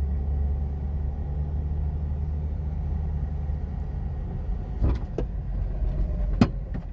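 Cabin noise inside a 2005 Jeep Wrangler TJ driving slowly in low gear through deep snow: a steady low engine and drivetrain rumble. A few sharp clicks or knocks come near the end, the loudest a single sharp knock.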